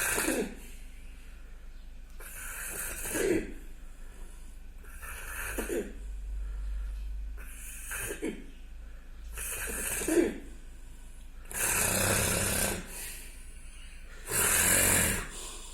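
A sleeping person snoring, with about seven rasping snores roughly every two to three seconds. The last two, near the end, are longer and louder.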